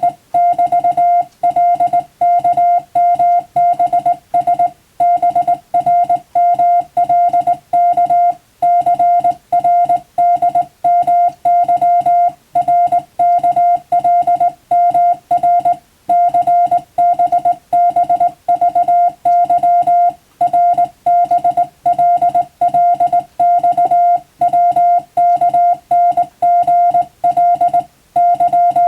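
Morse code (CW) sent as a single steady beep tone, keyed on and off in a fast, continuous run of short and long beeps with brief gaps between characters and words: English-language telegram text for radiotelegraph exam practice.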